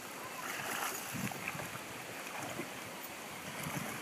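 Two dogs, a Staffordshire bull terrier and a Labrador, swimming and splashing through a shallow stream, the water sloshing steadily with a few soft splashes.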